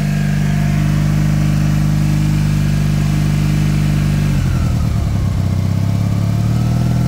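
1997 Honda Magna's 750 cc V4 engine running at a raised, steady speed. About four seconds in the revs drop, the note runs unevenly for a couple of seconds, then it settles at the lower speed.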